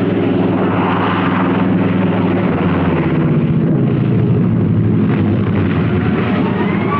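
F4U Corsair fighter's radial piston engine droning steadily as it comes in to land, with a slight drop in pitch about four seconds in.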